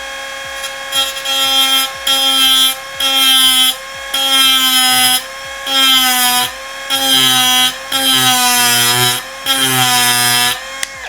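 Angle grinder running at a steady whine, its disc pressed against a glazed ceramic keycap in about eight short grinding passes starting about a second in, the pitch dipping slightly under each pass. The non-diamond disc only scrapes off the glaze and barely bites into the hard ceramic body.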